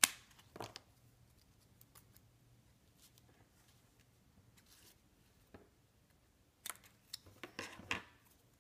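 Small craft scissors snipping through a sheet of foam adhesive dots: a sharp snip right at the start and another just after, then quiet. A few more sharp clicks and rustling come about seven seconds in as the cut foam strip is handled.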